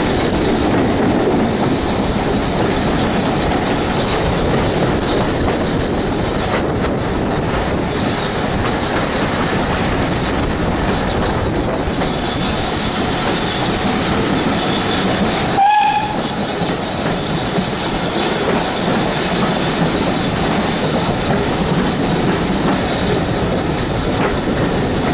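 A steam-hauled heritage passenger train running along the line, heard from a carriage window: a steady rumble and rattle of carriage wheels on the track. About two-thirds of the way through comes one short whistle toot.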